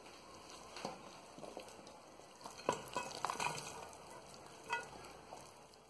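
Spoon pushing a creamy, chunky salad out of a stainless steel bowl into a glass baking dish: soft wet rustling and plopping, with a few light clicks of the utensil and bowl.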